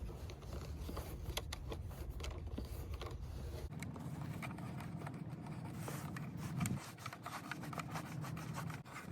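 Plastic takedown screw being turned by hand under an AR-7 rifle's receiver to fasten it into the stock: steady rubbing and scraping with many small clicks of plastic and metal parts.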